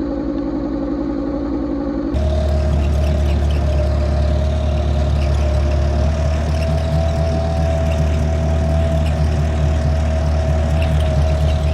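Tractor engine running steadily. About two seconds in, the sound changes abruptly to a louder, deeper drone with a steady whine above it.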